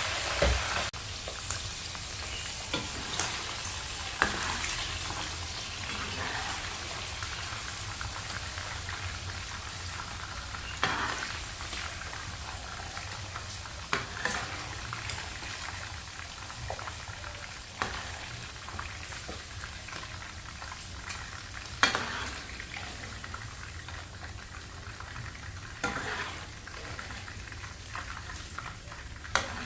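Food sizzling in hot oil in a pan, stirred with a spatula that knocks and scrapes against the pan every few seconds.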